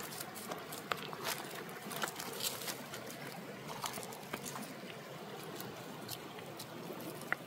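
Footsteps crunching over loose, rounded river stones, with irregular sharp clicks of stone knocking on stone over a faint steady hiss.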